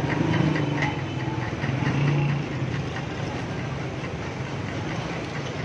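Steady motor hum under a constant noisy wash, with faint fast ticking.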